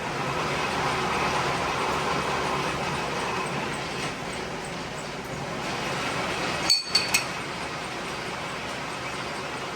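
1943 South Bend lathe running through a deep internal threading cut: a steady mechanical running noise, with a brief break and three sharp clicks about seven seconds in.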